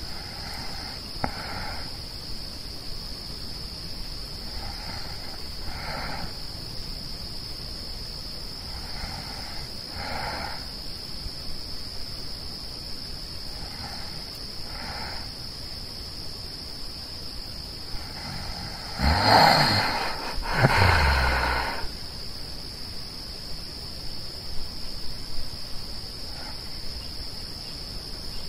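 Steady high chirring of night insects, with a sleeper's slow, heavy breaths coming in pairs about every four seconds. About two-thirds of the way in, two much louder breaths with a falling pitch stand out.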